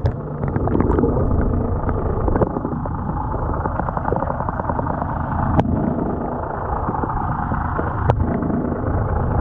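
Steady low rumble and hiss of water heard underwater, with two sharp clicks, one about halfway through and one near the end.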